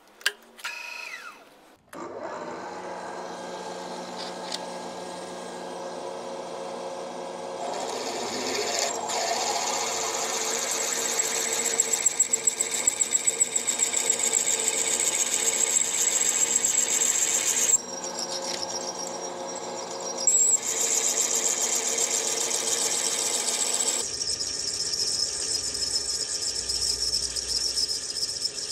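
Milling machine spindle driving a 17/32 in twist drill into a cast vise body, drilling the tap-size hole for a 5/8-11 thread: a steady spindle whine under a scratchy cutting noise with rapid chip ticks. The cut grows louder as the drill goes deeper and eases off briefly about two-thirds of the way through.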